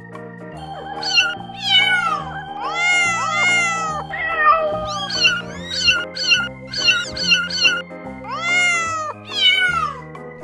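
Very young kittens meowing: many short, high-pitched calls that fall in pitch, often overlapping, over background music with slowly changing chords.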